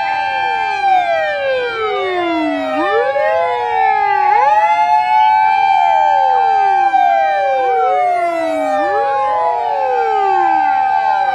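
Several Japanese emergency vehicles' electronic sirens wailing at once, out of step with each other. Each rises quickly to a held high note, then slides down over about two seconds, and repeats.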